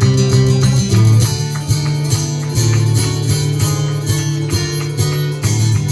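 Live rock music: an instrumental break of strummed guitar over a steady rhythm and strong bass notes, with no singing.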